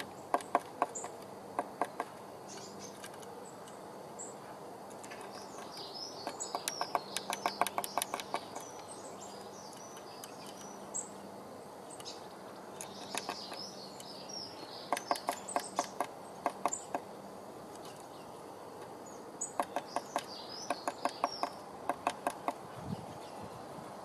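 Blue tit pecking at the soft wood of a nest box's entrance hole to enlarge it. Four bursts of quick, sharp taps, several to a second, with birds chirping in between.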